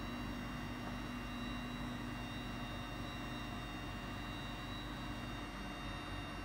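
Small CNC milling machine running: a steady motor hum with a constant high whine, and a lower tone that fades out near the end.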